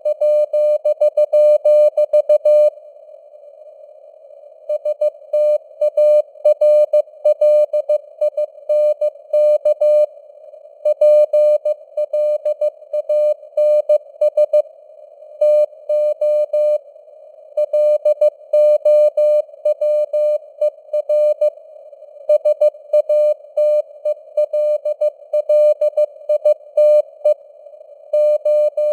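Morse code at 15 words per minute: a single steady beep tone keyed on and off in dots and dashes, over a narrow band of hiss like a radio receiver's noise. Pauses of one to two seconds fall between groups of characters.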